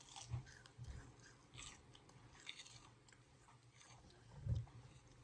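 Celery with peanut butter being bitten and chewed, a few short crisp crunches in the first half. A louder low thump comes a little after four seconds in.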